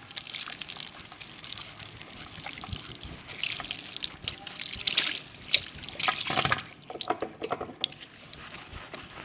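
Water splashing and dripping with wet, uneven sounds of hands working soap through hair and over a face during a barber's hair and face wash. There are louder splashes about five and six seconds in.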